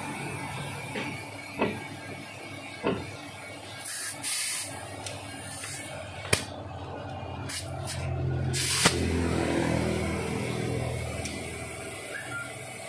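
Metal clicks and taps of a valve tool working a car tyre's valve stem in an alloy wheel, with a brief hiss about four seconds in. A low hum swells and fades past the middle.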